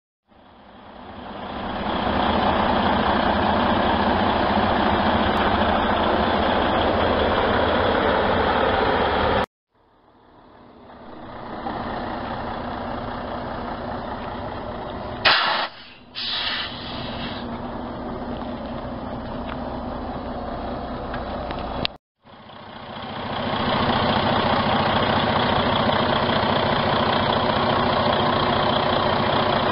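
Diesel engine of a 2014 Freightliner Coronado truck tractor idling steadily. The sound cuts out twice and fades back up each time, and two short hisses come about halfway through.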